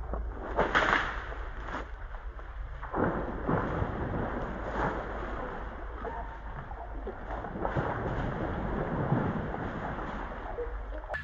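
Irregular splashing and rustling in water and vegetation, with repeated sharp splashes over a low steady rumble, as of a hooked snakehead thrashing while it is fought in.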